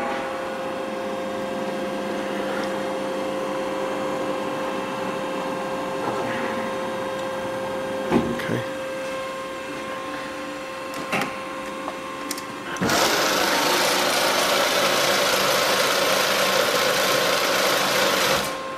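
1978 Kasto PBA 320/460 AV automatic horizontal bandsaw running with a steady hum and a few sharp clicks and knocks. About two-thirds of the way through, a loud steady hiss starts, lasts about six seconds and cuts off suddenly.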